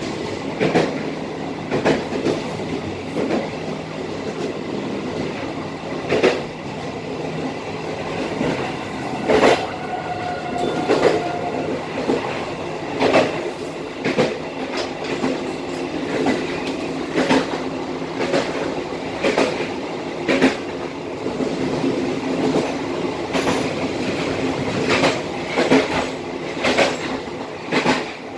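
Passenger train coaches running at about 55 km/h, heard from the rear of the last coach: a steady rumble of wheels on rail, with irregular clacks and knocks about once a second.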